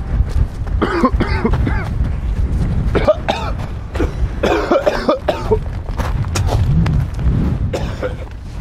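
People coughing repeatedly and clearing their throats, irritated by the sulphur fumes of volcanic fumaroles, over a steady low rumble of wind on the microphone.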